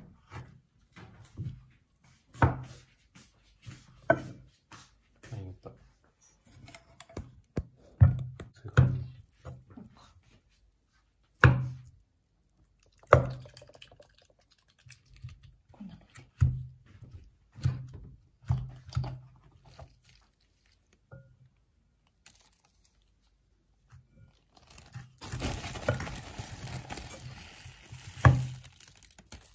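Wooden masher thumping into cooked pumpkin and sweet potato in a rice cooker's inner pot: irregular dull thuds every second or two as the vegetables are mashed. Near the end, a few seconds of hissing, rustling noise.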